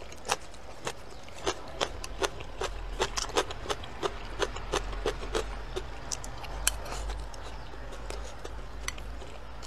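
Close-up chewing of crisp water spinach, a run of sharp crunching clicks about two or three a second.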